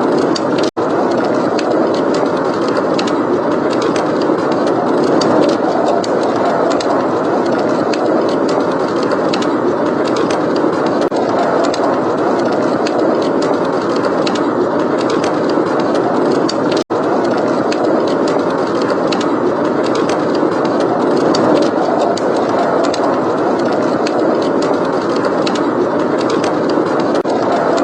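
Steady blizzard wind noise with a wood fire crackling in small sharp pops throughout. The sound cuts out for an instant twice, about a second in and about two-thirds of the way through.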